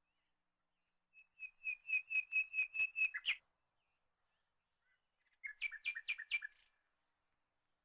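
A small bird chirping in two quick runs of sharp repeated notes: about ten evenly spaced chirps ending in a short upward flourish, then, after a pause of about two seconds, a shorter run of about six.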